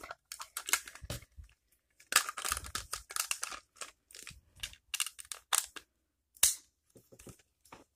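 Hard plastic clicks, taps and scrapes of an action camera being fitted into its clear waterproof housing and the case being handled, with a sharper click about six and a half seconds in.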